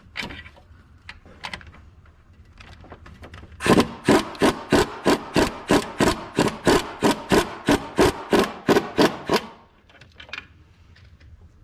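Rhythmic ratcheting, about four strokes a second for some six seconds, as a ratchet turns the alternator belt adjuster bolt to tighten the drive belt. A few scattered tool clicks come before and after it.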